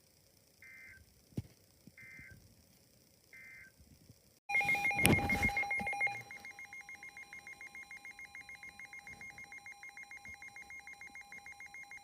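Emergency Alert System tones: three short data-burst chirps about a second apart, the end-of-message code closing one warning. About four and a half seconds in, a loud crackly burst starts the next alert, and then a steady, rapidly pulsing alert tone of several pitches sounds.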